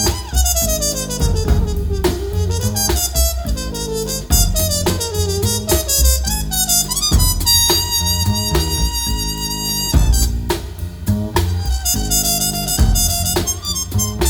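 Instrumental break of a jazzy song, a wind-instrument lead with sliding notes over drums and bass, played back through a home-built speaker set with a planar-magnetic midrange panel.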